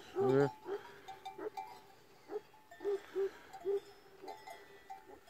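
Cowbells on grazing cattle clanking irregularly as the cows walk, a single ringing note repeated every half second or so. A louder, wavering sound stands out near the start.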